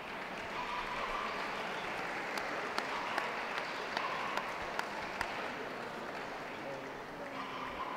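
Ringside audience applauding, swelling in about a second in and dying away near the end, with a few sharper single claps standing out evenly spaced through the middle.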